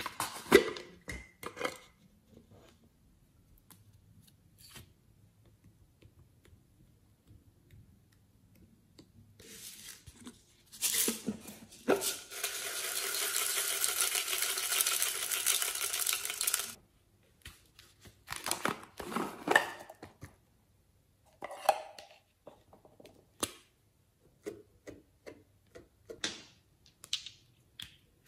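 Small plastic toy containers being opened and handled: sharp clicks, snaps and taps. In the middle a container is tipped out over the slime with a steady pouring rattle lasting about five seconds, the loudest sound in the stretch.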